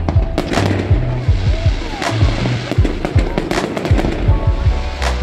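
Fireworks display: aerial shells and fountains going off in a rapid string of bangs and crackles, several a second, over music with a steady deep bass line.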